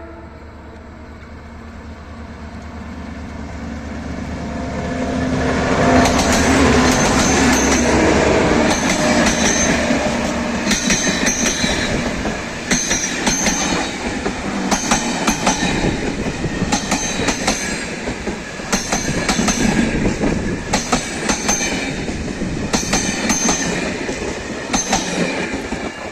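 TCDD DE 22000-class diesel locomotive, an EMD G26CW-2 with a two-stroke EMD 645 engine, approaching and passing at speed. Its passenger coaches follow, clattering over rail joints in a steady rhythm of paired clicks about every two seconds.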